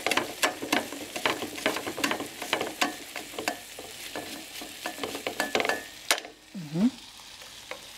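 A tomato being grated on a flat metal hand grater, rasping strokes about three a second, stopping about six seconds in.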